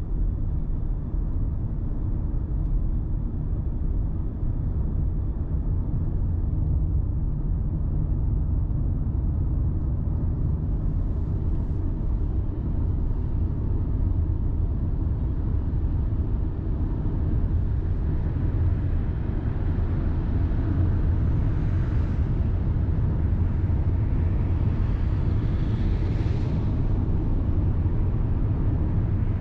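Steady low rumble of a car driving along a city street, engine and road noise with no distinct events. Two brief rushing swells of hiss stand out in the last third.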